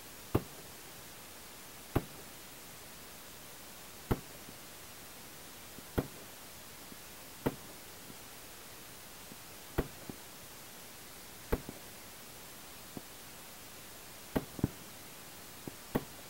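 M4-style carbine fired in single shots, about ten short sharp bangs spaced every one and a half to two seconds with a quick double near the end, over a steady low hiss.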